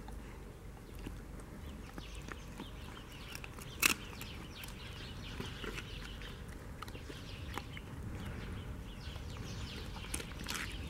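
A dog chewing raw meat and bones: scattered crunches and clicks, with one sharp crack about four seconds in.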